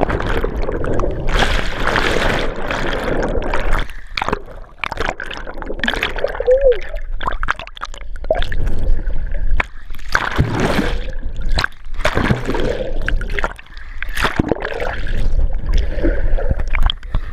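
Underwater rushing and gurgling of bubbles heard through a GoPro camera held beneath the spring's surface after a plunge. It is loudest in the first few seconds, then goes on as irregular swishes as the swimmer strokes.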